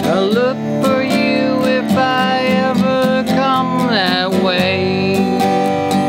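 Steel-string dreadnought acoustic guitar strummed in a steady rhythm through an instrumental break in a folk song, with a held melody line that slides between notes near the start and again about four seconds in.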